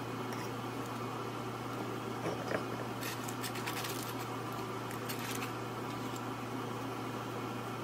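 A fork picking roasted chiles out of aluminium foil: a couple of light clicks, then a spell of faint crinkling and ticking, over a steady low hum.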